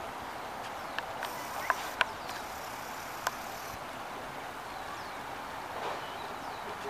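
Steady outdoor background noise with a few short sharp clicks, about one and two seconds in and again past three seconds.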